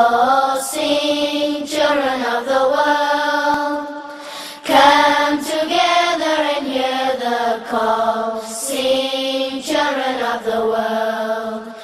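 Intro music of chant-like vocal singing: long held notes that slide gently between pitches, with a brief pause about halfway through.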